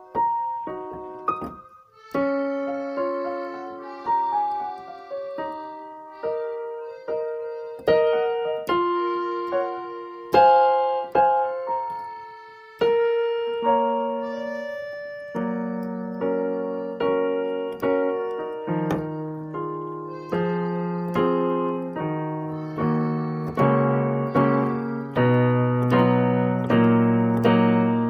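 Piano music playing a melody of single struck notes, with lower chords joining in from about halfway through.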